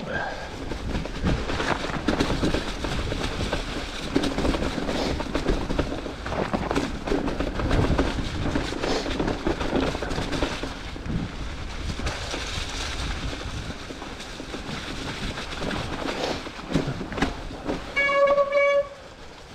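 Mountain bike riding over a trail: steady rolling noise with knocks and rattles. Near the end the Cube's hydraulic disc brake gives a short, loud, steady-pitched squeal, a brake noise that was traced to air in the brake line.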